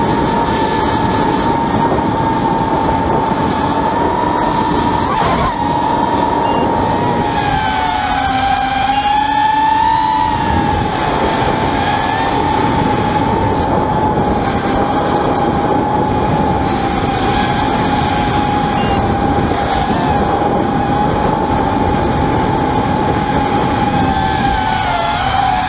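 FPV quadcopter's electric motors and propellers whining steadily, heard through the onboard camera, over a rush of air noise. The pitch dips and recovers with throttle changes, about eight seconds in and again near the end.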